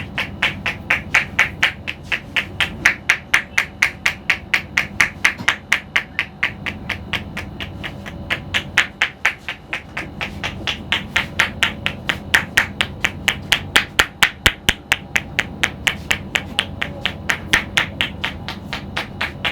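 Rapid, even percussive tapping on a person's head during an Indian head massage, about four to five strikes a second, easing briefly about nine seconds in.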